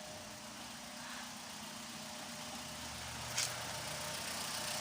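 Car engine running at idle after its fuel pump and pressure regulator O-rings were replaced to cure fuel-pressure loss and hard starting, with one sharp click about three and a half seconds in.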